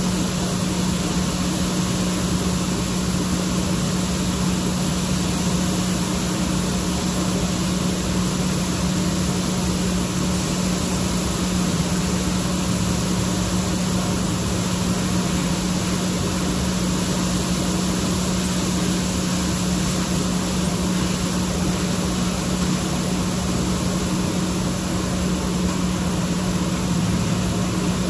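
Steady mechanical drone of a running motor or fan, with a constant low hum and an even hiss over it, unchanging throughout.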